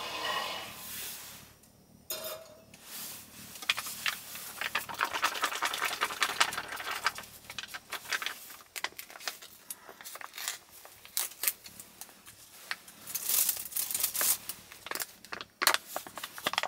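A plastic food packet crinkling and rustling as it is handled, with many small sharp crackles and a louder tearing rip about three-quarters of the way through as it is torn open.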